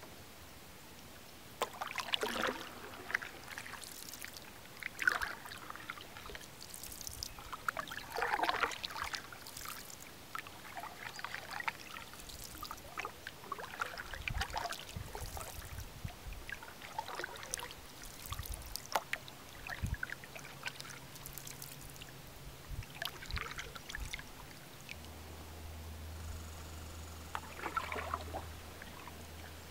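Canoe paddle strokes in lake water: a splash and swirl as the blade dips and pulls every couple of seconds, with water dripping and trickling off the paddle between strokes. A few low thuds come in around the middle.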